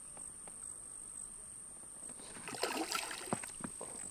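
Water splashing briefly, a little past halfway, as a hooked fish thrashes at the surface near the bank, over crickets chirping in one steady high tone.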